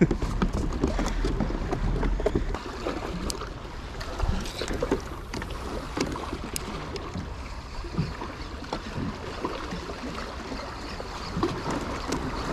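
Water lapping and splashing against a kayak hull at sea, with scattered small knocks and clicks and a low wind rumble on the microphone that is strongest at the start.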